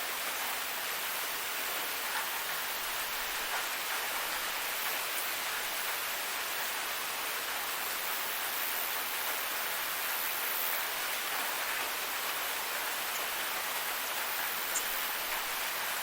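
Steady rain falling, an even hiss of many drops with no thunder, and one small tick near the end.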